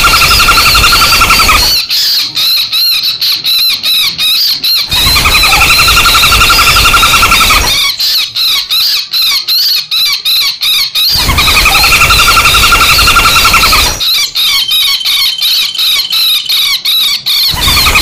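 Recorded calls of the common flameback woodpecker (pelatuk bawang), played as a bird lure. A rapid rattling trill of about three seconds alternates with about three seconds of sharp, quickly repeated calls, and the pair repeats three times over a steady high background tone.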